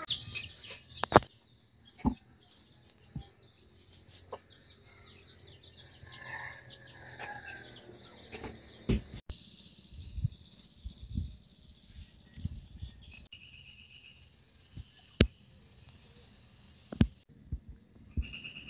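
Village outdoor sounds: small birds chirping and a rooster-like call about six seconds in, then scattered sharp knocks and dull thuds.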